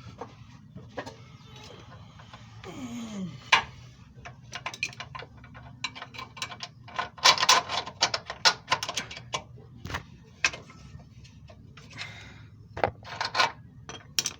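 Hand tools clicking and knocking on metal in irregular bursts, densest in a run of rapid clicks near the middle, while an engine mount bolt is being worked into line. A short falling tone sounds about three seconds in.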